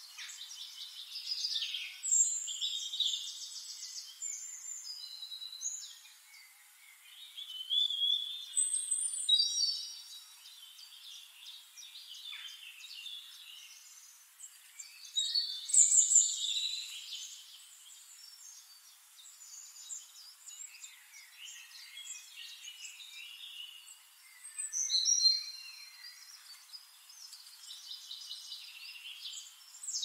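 Several songbirds singing together: overlapping chirps, whistled notes and rapid trills, with louder phrases coming every few seconds.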